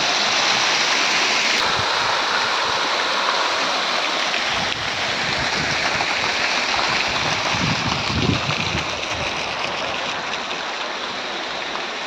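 Garden fountain's water jets splashing into their pool, a steady rush of falling water. A brief low rumble, like wind on the microphone, comes about eight seconds in.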